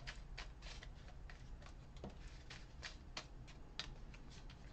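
A deck of oracle cards being shuffled by hand: a run of faint, short papery clicks and snaps, several a second.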